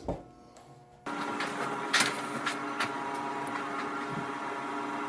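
A steady machine hum with several fixed tones starts abruptly about a second in, with a few sharp metallic clicks over it.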